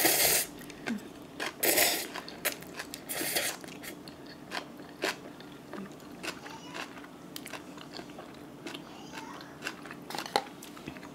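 Cup of Buldak spicy stir-fried instant noodles being eaten close to the microphone: three long noodle slurps in the first four seconds, then steady wet chewing with many small clicks.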